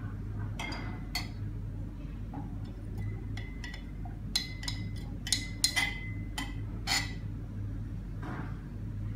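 Glass stirring rods clinking against the sides of glass beakers as liquid is stirred: about a dozen sharp, briefly ringing clinks, thickest between about four and seven seconds in, over a steady low hum.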